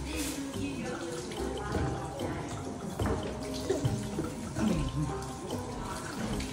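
Kitchen faucet running in a stainless steel sink while vegetables are rinsed under the stream, the splash changing as they pass through the water. Background music plays along with it.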